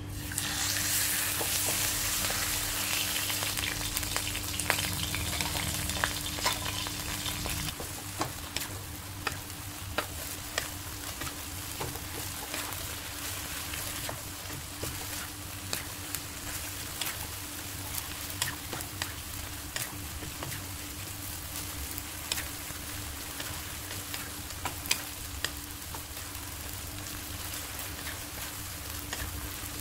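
Marinated pork slices sizzling in hot oil in a wok as they are stir-fried, with a wooden spatula scraping and tapping the pan in frequent sharp clicks. The sizzle starts loud as the meat goes in and settles to a steadier, quieter frying hiss after about eight seconds.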